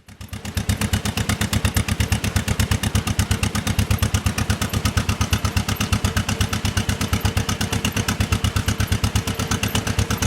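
1949 John Deere Model M's two-cylinder engine running at a steady speed, its exhaust beating evenly at about eight pulses a second.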